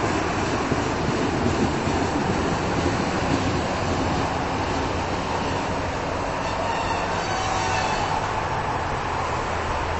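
620 Class diesel railcar set running into a station platform and slowing, its diesel engines and wheels on the rails making a steady rumble. A thin squeal, typical of the brakes coming on, sounds from about six to eight seconds in.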